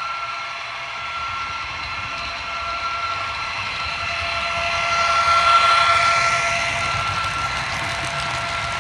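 Model electric locomotive and its hopper wagons rolling past close by: a steady whine made of several tones that swells to its loudest a little past halfway as the locomotive goes by, then eases off, over a low rolling rumble of wheels on the track.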